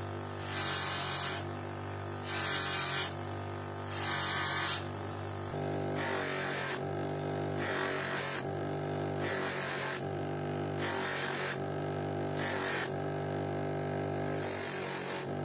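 Wolf 8-inch bench grinder motor running with a buffing wheel fitted, a steady hum, while a plexiglass watch crystal is pressed against the spinning wheel in repeated passes, each bringing a hiss about every second and a half. The passes buff out deep scratches and level the crystal's edge, then give it a final polish.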